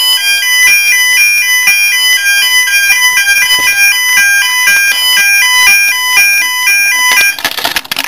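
Electronic fire alarm sounder run from a homemade fire alarm panel, sounding a loud, fast repeating sequence of stepped electronic tones. It cuts out about seven seconds in, followed by clicks and rustling as the panel's wiring is handled.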